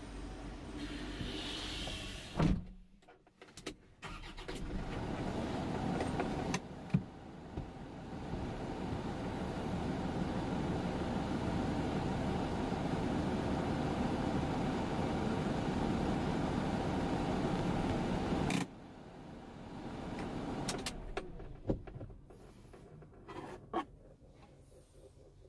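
Truck cab door slammed shut once, then the Isuzu QKR270's 3.0-litre four-cylinder turbodiesel (4JH1) running steadily, heard from inside the cab. The engine sound stops abruptly, followed by a few light clicks and knocks in the cab.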